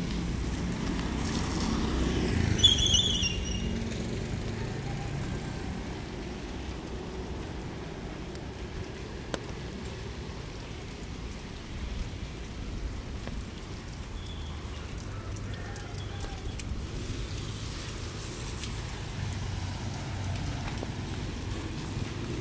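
Street ambience in light rain: the low hum of vehicle engines passing, swelling near the start and again later, over a steady hiss. A brief high-pitched squeal comes about three seconds in.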